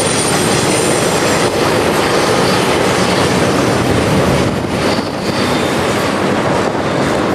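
Double-stack intermodal freight train rolling past close by on curving track: a steady rumble and rattle of steel wheels on rail, with faint high wheel squeal now and then.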